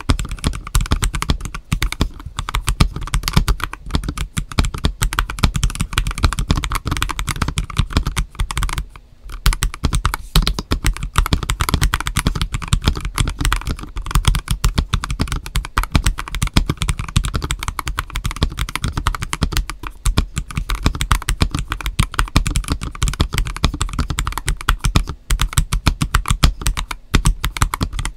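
Continuous fast typing on a stock, unmodded GAS67 mechanical keyboard kit fitted with Akko Starfish switches and Terra PBT dye-sub keycaps: dense key clacks with one brief pause about nine seconds in.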